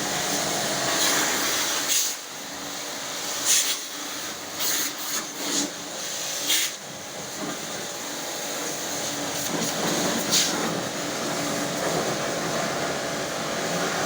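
Pressure-washer jet spraying water over an air conditioner during a deep clean. It makes a steady rushing spray with brief louder surges now and then, and stops abruptly at the end.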